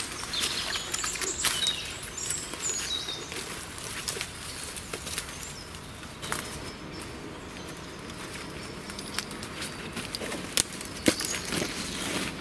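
Footsteps pushing through dense undergrowth: grass and brush rustling, with scattered sharp snaps of twigs. Birds chirp in the background near the start.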